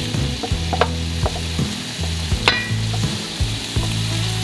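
Chicken breast pieces sizzling in a hot frying pan as they are scraped off a metal tray with a wooden spatula, the spatula knocking and scraping against tray and pan several times. A low hum runs underneath, cutting in and out.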